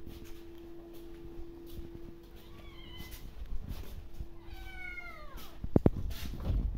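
Kittens meowing: a short, high, falling meow about two and a half seconds in, then a longer falling meow a couple of seconds later, followed by two sharp knocks.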